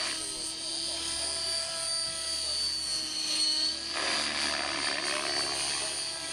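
Radio-controlled helicopter flying aerobatics, a steady high whine over lower rotor and motor tones that slide up and down in pitch as the load changes. From about four seconds in, a broader rushing blade noise joins it.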